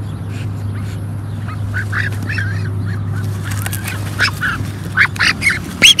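Waterfowl calling: a string of short calls that start about two seconds in and grow louder and more frequent toward the end, over a steady low hum.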